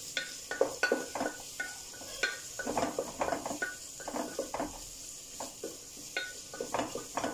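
A wooden spatula stirring onions frying in oil in a metal pressure-cooker pot: an irregular run of scrapes and light knocks against the pot, about two a second, over a faint sizzle.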